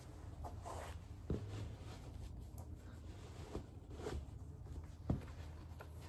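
Sneakers being put on and laced: soft rustling of laces and fabric, with two sharper knocks as a shoe is set down on a hardwood floor, about a second in and near the end, over a low room hum.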